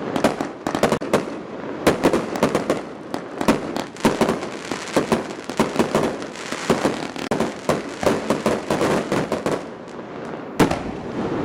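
Aerial fireworks display: a rapid, uneven run of bangs and dense crackling from bursting shells and crackling stars, with a sharp bang near the end.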